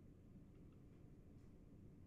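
Near silence: faint room tone with a low hum, and two faint ticks about half a second in, fitting a computer mouse double-click.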